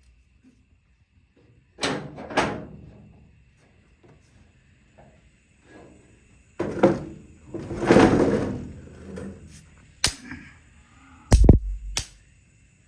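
A series of knocks and thuds in a small room, a few sharp bangs with one longer scraping rumble in the middle, and the heaviest, deepest thump about eleven seconds in.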